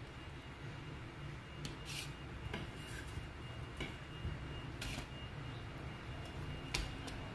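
Kitchen knife cutting a white onion on a wooden chopping block: a handful of short, sharp, irregularly spaced taps of the blade and onion pieces on the board, over a steady low background hum.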